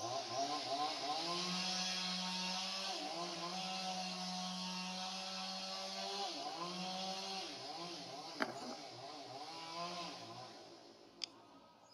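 A small engine running, its pitch wavering up and down, fading out near the end. A sharp click sounds about eight and a half seconds in, and another about eleven seconds in.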